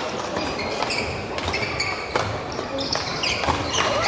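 Badminton rally in a large gymnasium: rackets striking the shuttlecock in sharp smacks, several a second or so apart, mixed with sneakers squeaking on the wooden court floor.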